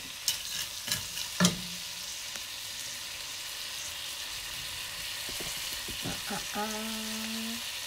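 Green peas sizzling in a hot enameled cast-iron pot while being stirred with a wooden spoon. Several sharp knocks come in the first second and a half.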